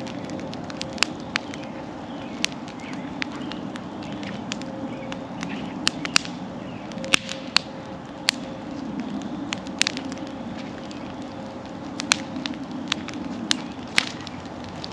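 Wood bonfire crackling, with irregular sharp pops and snaps from the burning logs over a steady low rushing noise.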